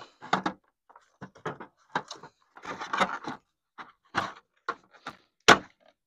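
Plastic tail-light housing of a Toyota Sienna being pushed back into its socket by hand: a string of light knocks, scrapes and clicks, the loudest a sharp click near the end.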